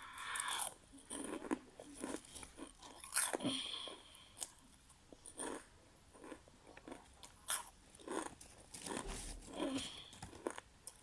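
Close-miked eating: irregular bites, crunching and wet chewing of food, in short bursts with brief pauses between them.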